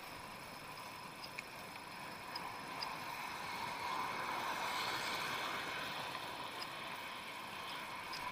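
Bicycle riding along an asphalt road: steady tyre and wind noise, growing a little louder about three seconds in, with faint scattered ticks.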